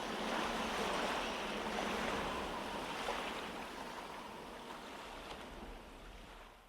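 Ocean surf sound effect closing out a song, an even wash of waves that gradually fades out.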